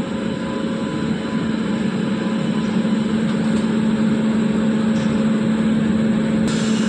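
WAP-7 electric locomotive running with a steady hum that grows slowly louder. A hiss comes in near the end.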